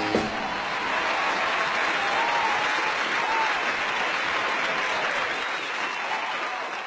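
Crowd applauding steadily, slowly fading out near the end.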